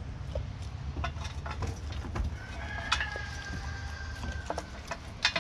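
Goat eating pellets and greens from a metal feed pan, with quick irregular crunches and clinks of its muzzle against the metal. About halfway through, a drawn-out, even-pitched animal call sounds for about two seconds.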